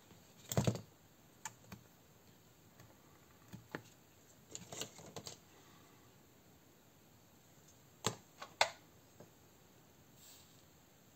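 Scattered clicks and knocks of hand tools and plastic airsoft-pistol parts being handled and set down on a workbench, with the loudest knock about half a second in and small clusters near the middle and about eight seconds in.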